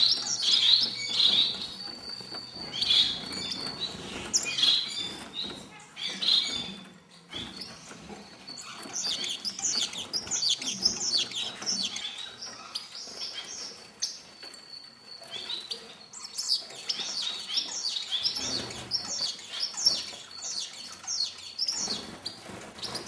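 A flock of star finches calling with many short, high chirps that overlap and follow one another closely.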